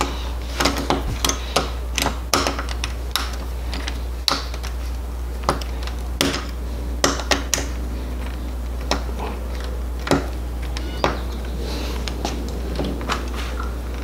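Scattered small metal clicks and taps from doorknob hardware being fitted by hand: the knob turned onto its mounting screws and the screws tightened with a hand screwdriver. The clicks come several a second in the first half and grow sparse later, over a steady low hum.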